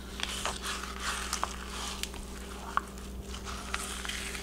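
Fillet knife sliding and scraping flat along fish skin against a plastic cutting board, separating the skin from a peacock bass fillet: irregular small clicks and wet rasping scrapes. A steady low hum runs underneath.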